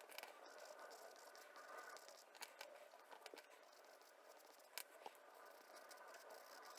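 Near silence: faint scratchy noise with a few light clicks, one about two and a half seconds in and one near five seconds.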